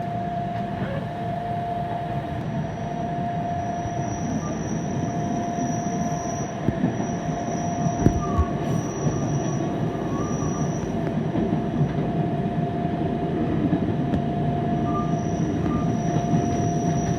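Fukui Railway 770-type light-rail car running slowly under a strong-wind speed restriction, heard from on board: a steady rumble of wheels on rail with a constant whine. A thin high squeal comes and goes, and there are a few clunks about halfway through.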